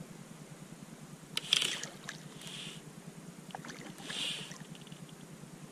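A hooked black drum thrashing at the surface beside a kayak: short splashes of water, the loudest about one and a half seconds in, another soon after and a third at about four seconds.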